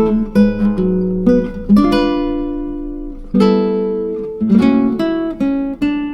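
Background music: an acoustic guitar playing plucked chords, each ringing out and fading before the next.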